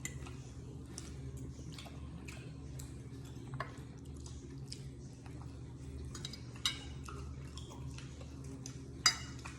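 Light clinks and clicks of utensils against dishes during a meal, over a steady low hum, with two sharper clicks in the second half.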